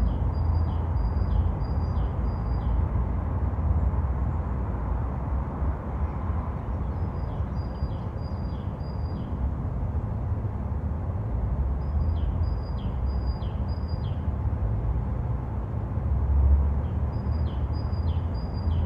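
Steady low rumble of road traffic, with a small songbird repeating a short phrase of four or five quick high notes, each dropping in pitch, four times about five seconds apart.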